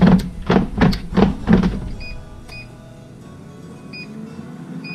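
Air fryer basket knocking and rattling about five times in the first two seconds, then four short beeps from the air fryer's control panel as it is set again, with its fan motor faintly running up.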